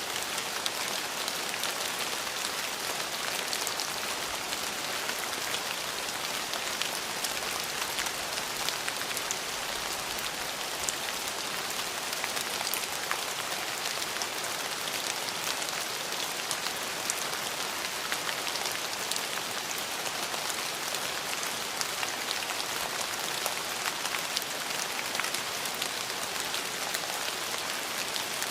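Steady rain falling, an even hiss with many small drop ticks throughout.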